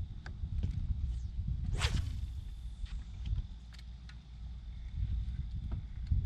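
A fishing rod cast swishing through the air once, about two seconds in, fading as the line flies out, over a low rumble of wind on the microphone.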